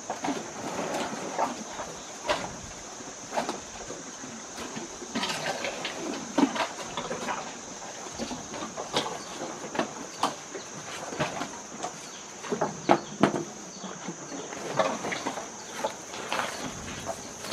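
Asian elephants rummaging in plastic baskets of cut sugarcane with their trunks and eating it: irregular knocks, rustles and crunches, some in quick clusters, over a steady high-pitched hiss.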